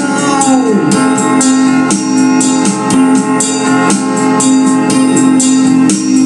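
Instrumental passage of a song: guitar strummed in a steady rhythm over a held organ-like keyboard note, with a downward pitch glide about a second in.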